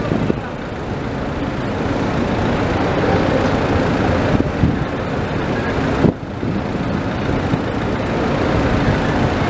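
Steady, loud rumble of heavy port machinery during a crane lift, with a brief dip about six seconds in.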